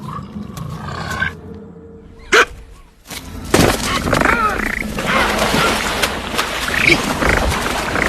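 Wild animal commotion: a sharp hit about two and a half seconds in, then from about three and a half seconds a loud, noisy scramble with animal calls over background music.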